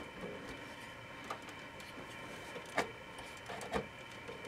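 A few faint, sharp clicks and knocks as an MSI Armor MK2 Radeon RX 580 graphics card is pivoted and pushed into its PCIe slot and against the metal case, over a steady faint hum.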